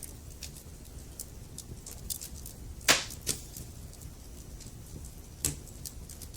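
Wood fire burning in a fireplace: a low steady rumble under scattered small crackles, with a sharp pop from the burning logs about three seconds in and another near the end.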